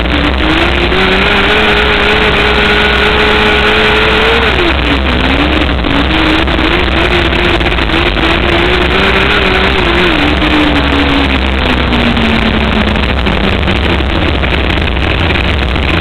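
Wingless 600 micro sprint car's 600cc motorcycle engine at racing speed on a dirt oval, heard on board. The revs drop sharply about four and a half seconds in, climb back, then fall away gradually over the last few seconds.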